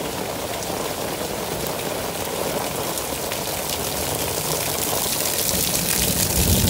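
Heavy rain pouring onto flooded pavement, a steady dense hiss with many small drop splashes. It grows somewhat louder and fuller near the end, where water streams down off a shelter roof and splashes onto the ground.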